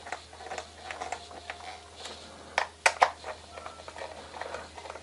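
Screwdriver turning the screws into a digital multimeter's plastic back case: light clicks and scraping, with a few sharper clicks a little past halfway.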